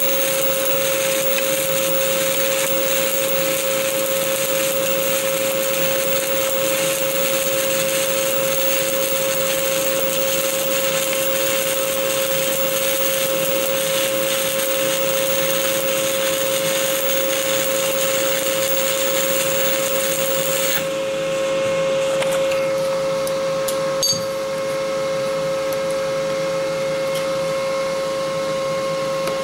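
Stick-welding arc of a 2.5 mm Esab OK 48.00 (7018) electrode burning on an open root pass: a steady loud crackling hiss. The arc cuts off about 21 seconds in, leaving a steady hum, with a single sharp click a few seconds later.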